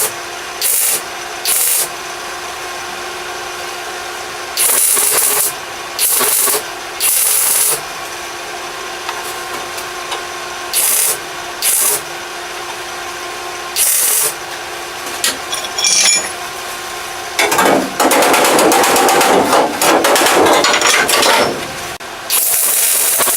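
Welder tack-welding a sheet-metal flange into a car's rear wheel well: about ten short bursts of welding crackle over a steady hum, then a longer burst of about four seconds near the end.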